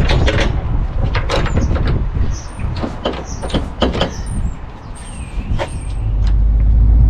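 Repeated clattering knocks and clicks of the curtain and its fittings being handled in a lorry cab. About six seconds in a deep, steady rumble rises: the lorry's diesel engine starting and running.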